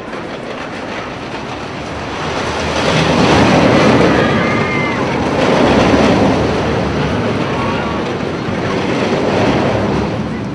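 Carnival ride noise: a dense rumbling rush that swells about three seconds in and again around six seconds, with a few faint high squeals gliding over it.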